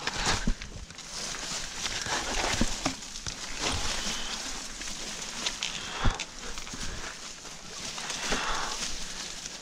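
Grass and brush rustling and scraping as a Trek Fuel EX mountain bike is dragged and slid down a steep, overgrown slope, with a few sharp knocks of the bike against the ground, the loudest about six seconds in.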